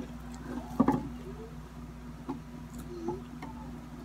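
Scattered light taps and crinkles from a clear plastic-wrapped tray of bread being handled and opened, the loudest tap about a second in, over a steady low hum.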